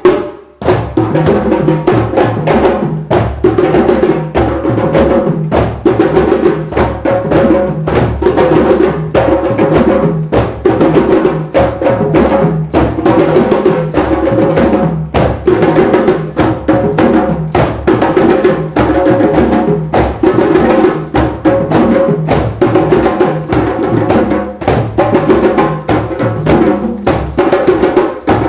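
A drumming group playing together: many drums struck in a fast, steady, repeating rhythm with sharp, woodblock-like strikes. The playing breaks off briefly at the very start and comes back in under a second later.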